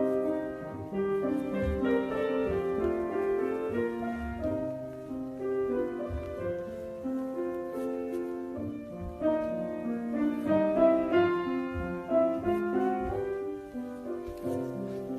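Classical-style piano music playing, a melody over chords with notes changing in a steady flow.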